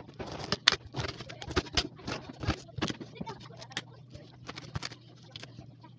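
Knife cutting up a whole pineapple on a plate: a string of irregular sharp cuts and knocks through the rind, over a low steady hum.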